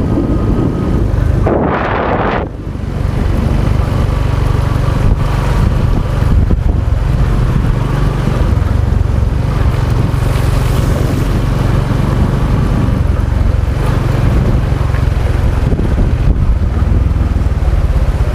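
Wind buffeting the microphone while riding a Honda XRM 125 motorcycle, with its engine running underneath. There is a brief louder rush about two seconds in.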